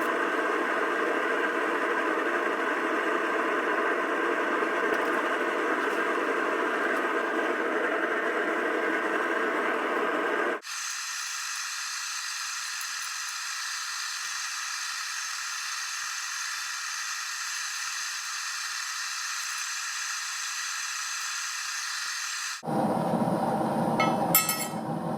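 Propane burner hissing steadily as it fires a homemade paint-can furnace to melt aluminum. The hiss shifts abruptly about ten seconds in, becoming thinner and higher, and shifts again near the end, where a few metallic clinks sound.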